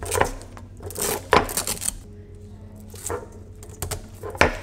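Sharp clicks and taps of hard parts on an FPV racing drone and its action camera as they are handled and fitted by hand on a tabletop: a series of short, irregularly spaced knocks.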